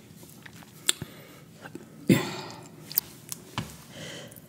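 Crunchy orange snack sticks being bitten and chewed: a few sharp crunches and crackles, the loudest about two seconds in.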